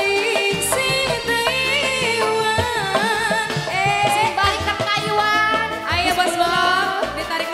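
Live dangdut music on an electronic keyboard, with a woman singing a wavering, ornamented melody.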